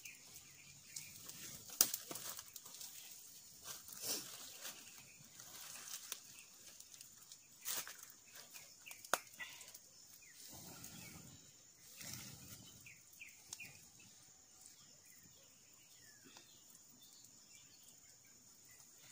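Small open wood fire crackling, with scattered sharp pops standing out in the first half, over faint outdoor ambience with some soft rustling.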